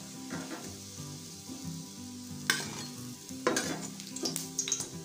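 Cutlets shallow-frying in oil in a stainless steel kadai, sizzling steadily. A spatula scrapes and clinks against the pan as they are lifted out, sharpest about two and a half, three and a half and four seconds in.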